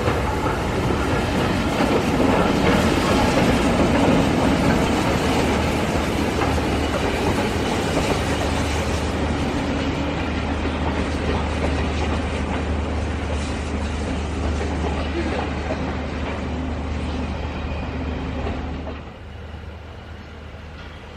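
A train passing along the line, with wheel noise on the rails over a steady low hum. It is loudest a few seconds in, slowly fades, then drops away sharply near the end.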